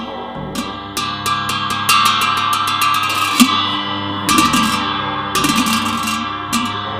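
Tibetan hand cymbals struck again and again, with a quick run of strikes about two seconds in, ringing on between the crashes. This is ritual music played as the offering of sound (shabda).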